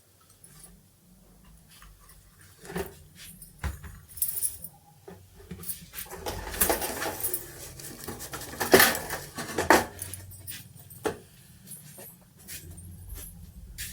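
Metal parts and tools being handled while an electric room heater is worked on: scattered clinks, jangles and knocks, coming thick and loud for a few seconds in the middle before thinning out again.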